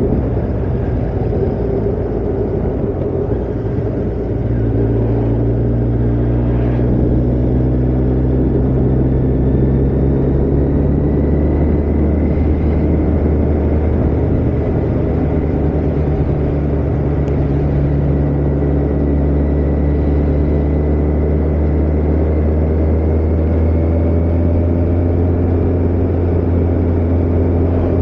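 Kawasaki ZZR 1400's inline-four engine running at a steady, moderate pace, heard from on board over wind and road noise. The engine note shifts about four seconds in and rises slightly near the end.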